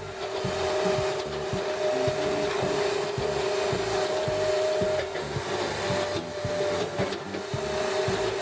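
Hydraulic log splitter running, a steady two-note whine over rough mechanical noise that dips briefly a couple of times.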